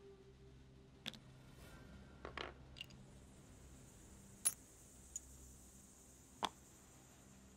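Sparse light clicks and clinks of small plastic game pieces and tokens being handled and set down on a tabletop, several in all, the sharpest about four and a half seconds in.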